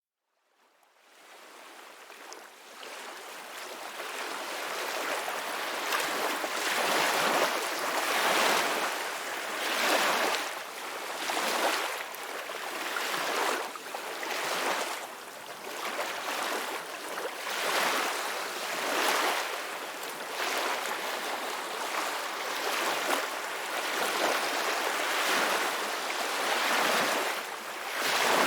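Ocean waves breaking and washing in continuously, the surf swelling and ebbing every couple of seconds. The sound fades in over the first few seconds.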